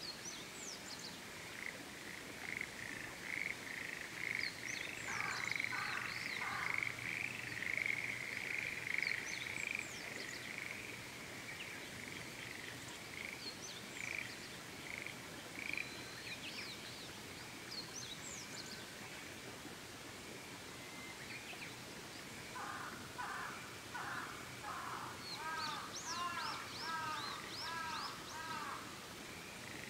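Frogs calling in trains of rapid pulses, dense for the first ten seconds or so and again near the end, over a steady background hiss. Short, high bird calls are scattered throughout.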